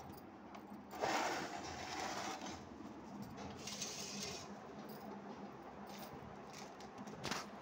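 Water splashing onto a concrete floor about a second in, followed by quieter scraping and handling noises.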